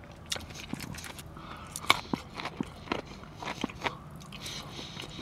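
Close-miked mouth eating sounds: chewing and biting into battered fried orange chicken, with irregular wet smacks and sharp crunchy clicks, a few louder ones in the middle of the stretch.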